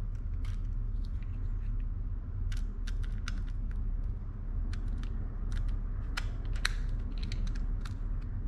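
Small irregular metal clicks and ticks of a precision screwdriver on a side-cover screw of a Shimano SLX BFS baitcasting reel as the screw is started and turned in, over a low steady hum.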